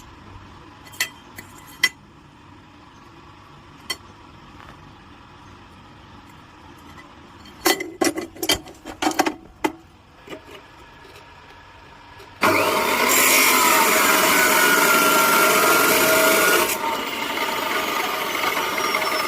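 Scattered metal clinks and clanks, then about twelve seconds in a power cutter starts cutting steel angle iron: a sudden loud, steady grinding noise with a whine through it, easing slightly a few seconds later as the cut goes on.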